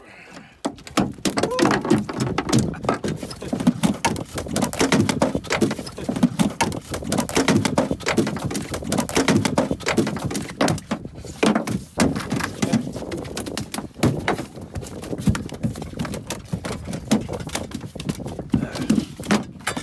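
A small shark, freshly landed, thrashing on the floor of a small aluminium boat, its body and tail slapping and knocking against the metal hull in quick irregular thuds.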